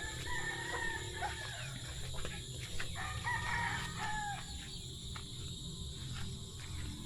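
Rooster crowing twice, about three seconds apart, with chickens clucking.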